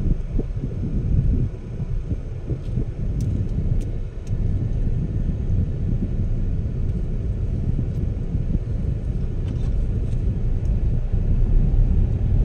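Low, steady rumble of a car's engine and tyres heard from inside the cabin while it drives slowly along a city street, with a few faint clicks.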